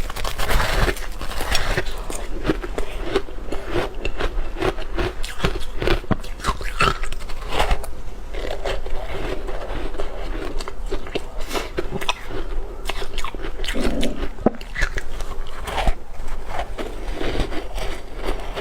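Ice being bitten and chewed: a dense, irregular run of crisp crunches and crackles.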